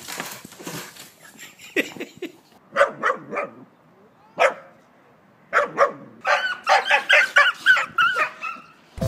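A dog barking: a few single barks and short pairs, then a quick run of barks from about five and a half seconds in.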